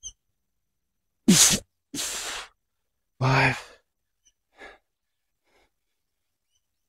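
A man breathing hard from strenuous exertion: two sharp, forceful breaths out about a second and two seconds in, then a voiced groan, then a fainter breath.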